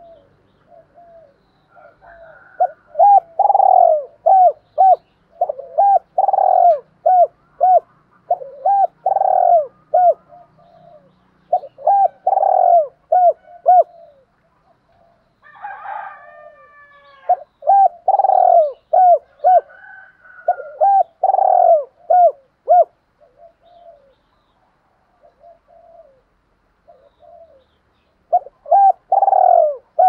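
Spotted dove cooing in repeated phrases. Each phrase is a loud coo followed by a few quicker, softer notes, and the phrases come in bursts with pauses of a few seconds between them.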